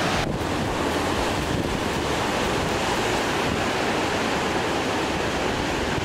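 Heavy ocean surf breaking at high tide: a steady rush of whitewater with wind on the microphone.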